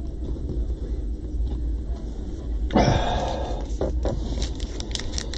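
Foil trading-card pack wrapper rustling and crinkling as the pack is picked up from a stack and opened, over a low steady hum. There is a short rustle about three seconds in, then a run of quick crackles near the end.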